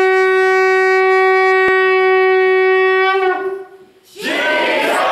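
A long spiralled shofar blown in one long, steady, bright note that ends about three seconds in with a short falling tail. About a second later a congregation breaks into shouts and clapping.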